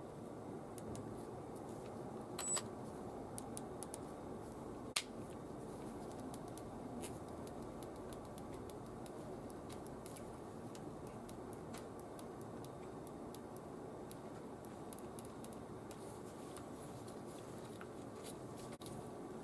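Scattered light clicks and taps, with a louder click about five seconds in and a brief high beep about two and a half seconds in, over a steady low hum.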